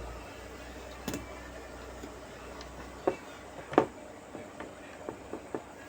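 Irregular small clicks and taps of tools and parts being handled on a workbench while replacement IGBTs are fitted to a fridge inverter board. A double click comes about a second in, two louder knocks a little after three and near four seconds, then a run of lighter ticks.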